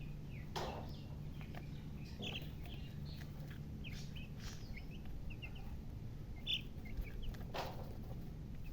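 Chickens chirping: many short, high peeps scattered throughout, with two louder, lower calls, one about half a second in and one near the end.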